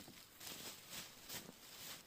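Plastic bag and gear being handled, rustling quietly in four or five short bursts.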